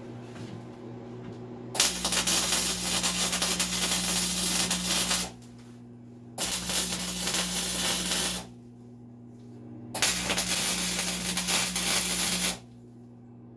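MIG welder arc crackling in three short runs as tack welds are laid on heavy steel plate, each lasting two to three and a half seconds with brief pauses between.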